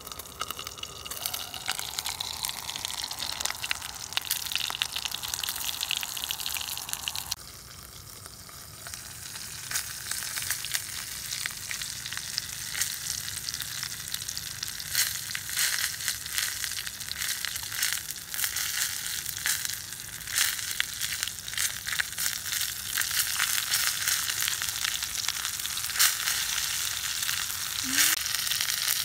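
Eggs frying in oil inside hollowed green tomatoes in a cast-iron pot: steady sizzling with frequent sharp spitting crackles.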